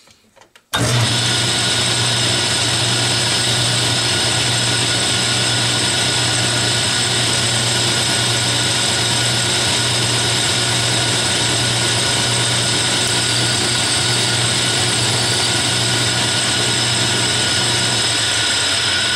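Atlas metal lathe running steadily, a constant motor hum with a steady whine, starting abruptly just under a second in.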